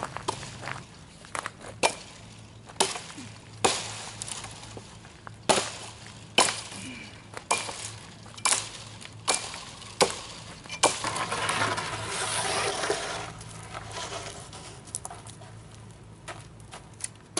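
Axe blows chopping limbs off a felled tree, sharp strikes about one a second, roughly a dozen in all. After them comes a few seconds of rustling, crackling brush, then a few faint clicks.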